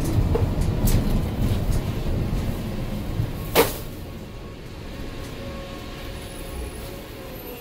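Articulated CNG bus with a Cummins Westport ISL G natural-gas engine, heard from inside, slowing to a stop, its running noise dropping to a lower, steadier idle. A single short, sharp sound stands out about three and a half seconds in.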